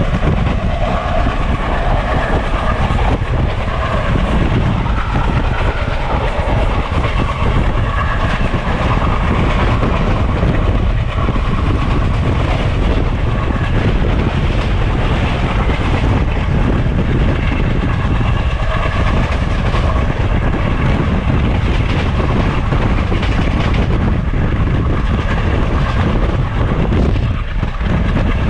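A train running on the rails: a loud, steady rumble of wheels on track with some clickety-clack.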